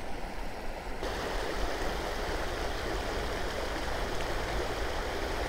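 River water flowing steadily, an even rushing wash.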